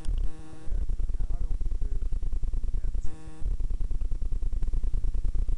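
Low, rapidly fluttering rumble on a small camera's microphone, typical of wind buffeting it, broken twice by a short call of a person's voice, once near the start and again about three seconds in.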